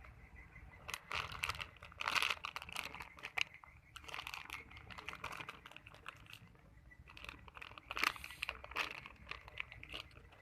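Plastic crinkling as it is handled, in two spells of dense crackles a few seconds apart.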